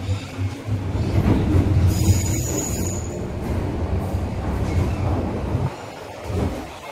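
MTR M-train (Metro-Cammell electric multiple unit) running between stations, heard from inside the carriage: a steady rumble of wheels and running gear. About two seconds in, a thin high squeal lasts for about a second.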